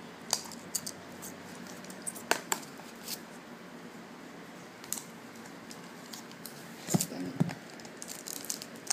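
Scattered light clicks, taps and crinkles of a CD album's plastic wrapping and packaging being handled, with a louder cluster of knocks about seven seconds in.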